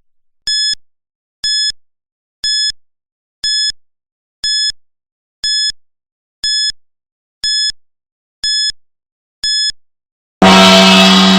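Countdown timer's alert: ten short, high-pitched beeps about one a second mark the final ten seconds, then a loud gong strikes near the end and rings on, signalling that time is up.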